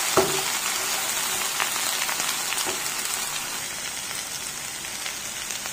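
Thin-cut potato sticks sizzling in hot oil in a frying pan, a steady hiss with a few light clicks of a metal spatula stirring them. They are frying on a high flame to dry off their moisture.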